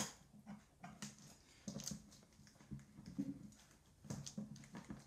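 Scissors cutting packing tape on a cardboard box: an irregular run of soft snips, clicks and scrapes.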